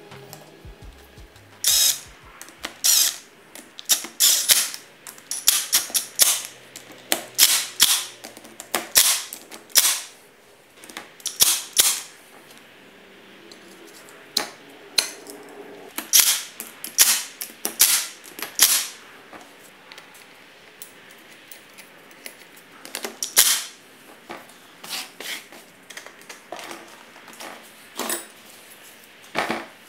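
Sharp metallic clicks and clanks in irregular succession, from tools, bolts and metal parts being handled while a ZF power steering pump is reassembled on a workbench.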